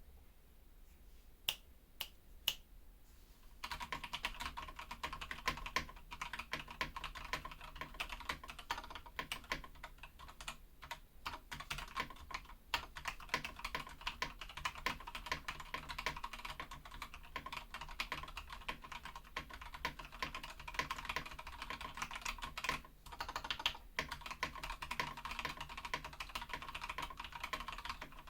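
BM980 mechanical keyboard with an aluminium plate and no dampening foam being typed on: a few single keystrokes, then fast continuous typing from about three and a half seconds in, with a brief pause later on.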